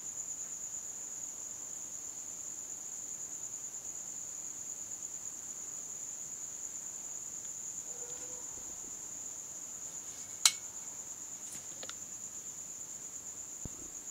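Cricket trilling steadily in a continuous high-pitched chirr, with a single sharp click about ten and a half seconds in.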